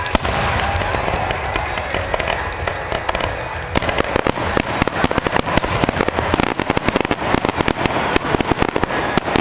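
Aerial fireworks display: a sharp bang just after the start, then from about four seconds in a dense run of rapid crackling pops.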